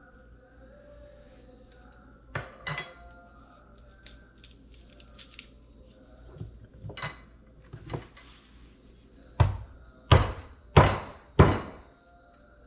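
Kitchen-counter knocks and light clinks, then four loud, evenly spaced thumps, about two-thirds of a second apart, near the end.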